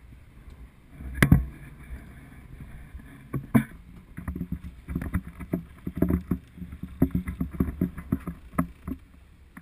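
Wind and sea noise on an action camera aboard a sportfishing boat, with a sharp knock about a second in and then a run of irregular low thumps and knocks.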